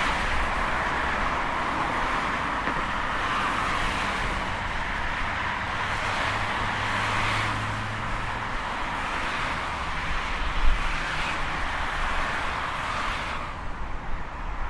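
Steady city highway traffic: a continuous hiss of tyres on the road from passing cars, with engine hum underneath. A low engine drone stands out around the middle, and the tyre hiss thins near the end as the traffic lets up.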